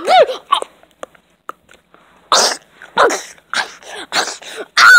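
A baby's short breathy grunts, about five in a row, then a loud high-pitched squeal starting just before the end.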